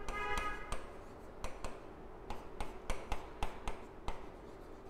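Pen writing on a board: irregular taps and short scrapes as letters are formed, with a brief high squeak just after the start.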